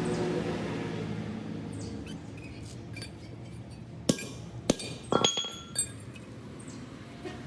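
A steady machine hum fading out over the first two seconds, then a few sharp metallic clinks from about four seconds in, the loudest ones ringing briefly.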